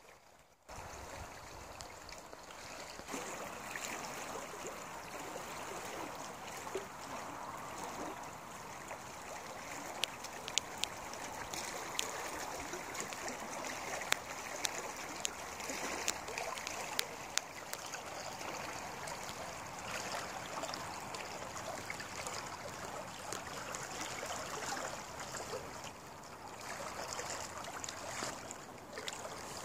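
Steady rushing of a fast-flowing river current, beginning suddenly about a second in, with a few sharp clicks in the middle.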